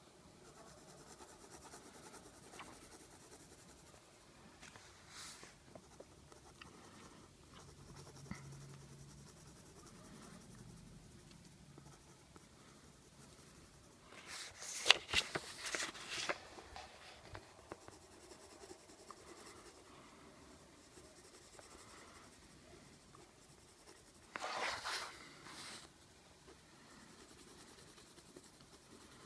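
Colored pencil scratching across paper as a drawing is coloured in: soft, steady strokes, with two louder bursts of rapid scribbling, one about halfway through and another near the end.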